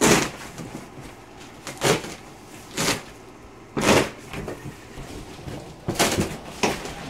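Cardboard box and packaging being handled during unboxing: about six short, noisy rustling and scraping bursts.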